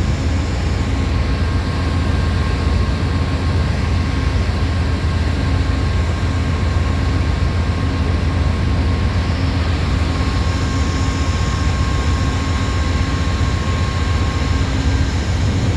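Amtrak Siemens Charger (ALC-42) diesel-electric locomotive running close by: a loud, steady deep engine drone with a thin steady whine above it, and the whine stops near the end.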